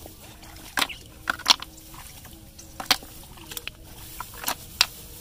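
A hand pushing through wet grass stems in shallow muddy water: an irregular string of sharp rustles and squelches.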